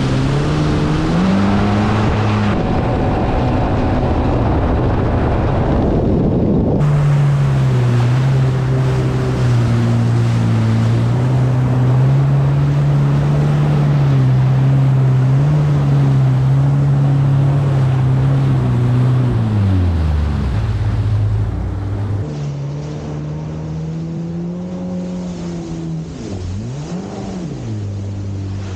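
Jet ski engine running at speed over the rush of water spray and wind. Its pitch holds steady, drops about two-thirds of the way through, then dips sharply and comes back up near the end as the throttle is eased off and opened again.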